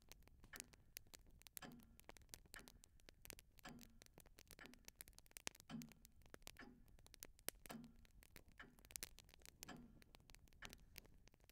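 Faint ticking of a clock, a low tick about once a second, with lighter scattered clicks in between.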